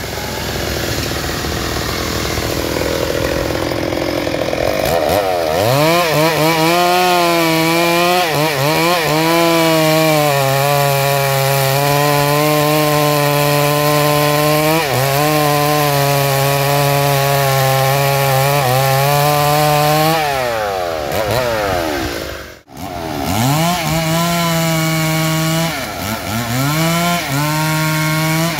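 Home-assembled two-stroke chainsaw cutting through a freshly felled teak log, running at high revs under load; the engine pitch sags and recovers as the chain bites into the wood. A little after twenty seconds the revs fall away with a brief break in the sound, then the saw is revved back up and dips under load twice more near the end.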